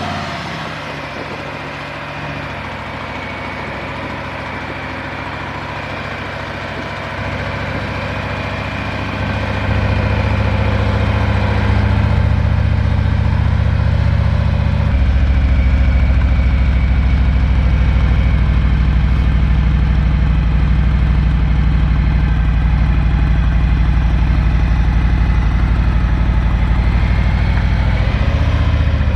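Motorcycle engine idling just after being started, a steady low running note that grows louder in steps about 7, 10 and 15 seconds in, then holds.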